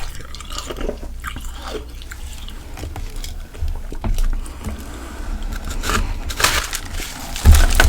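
Frozen ice or frost being bitten and chewed close to the microphone: irregular crisp crunches and crackles, with a denser burst of crunching a couple of seconds before the end and a heavy low thump near the end.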